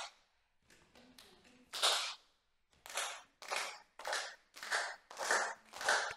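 Group of children and their teacher clapping hands together as a rhythm exercise. A few scattered claps come first, then from about halfway a steady beat of single, in-unison claps a little under two a second.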